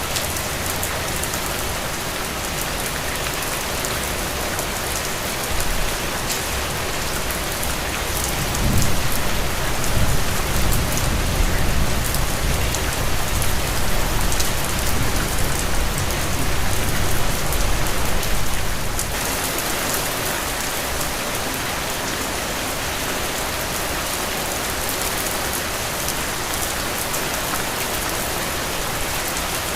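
Heavy rain falling steadily. About eight seconds in, a low rumble of thunder builds and rolls on for about ten seconds, then stops abruptly.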